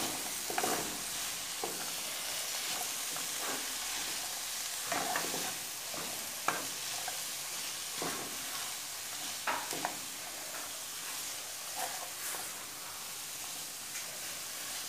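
Chopped greens frying in oil in a pan, stirred with a wooden spoon: a steady sizzling hiss with scattered scrapes and taps of the spoon against the pan.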